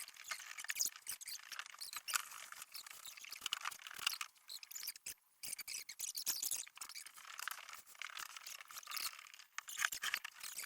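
Rapid, dense high-pitched clicking and clattering with almost no low end, typical of the sped-up sound of flat-pack cupboards being assembled.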